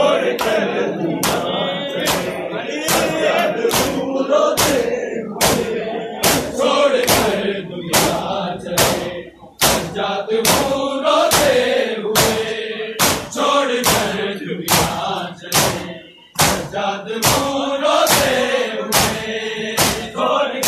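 Large crowd of men chanting a mourning chant in unison, with sharp rhythmic slaps about twice a second from hands beating on chests (matam). The chant and beating drop out briefly twice.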